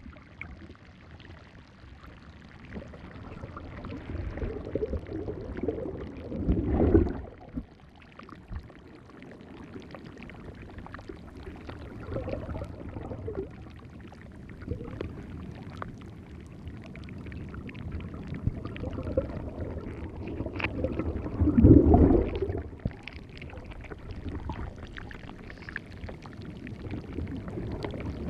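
Sea waves washing in and sloshing at the shore. Two larger waves surge and break, about 7 seconds in and again about 22 seconds in.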